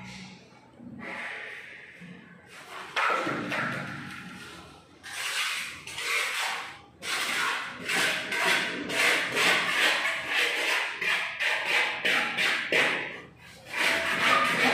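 Rough scraping or rubbing strokes in a bare room, sparse at first and then about two a second from about five seconds in.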